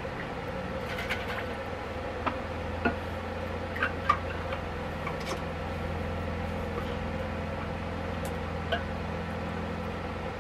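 A few light clicks and knocks of an insulated drink tumbler being handled and its lid fitted, scattered through the first nine seconds, over a steady low hum.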